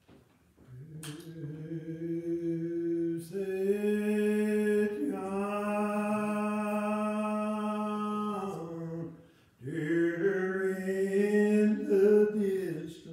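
A single voice singing unaccompanied in long held notes, in three phrases: one starting about a second in, a long one from about three to nine seconds, and another from about ten seconds until just before the end.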